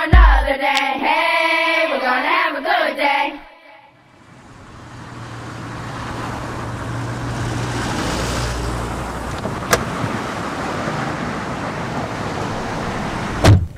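A song with singing plays for about three seconds, then cuts off. Steady car noise follows: a low rumble under an even hiss, with a single click partway through and a thump near the end.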